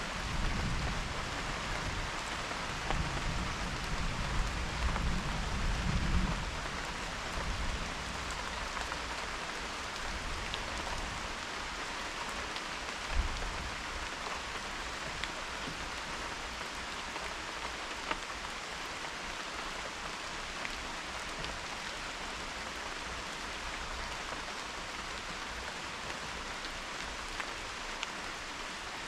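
Steady rain falling, an even hiss throughout. A low rumble of thunder runs under it for the first six seconds or so and dies away.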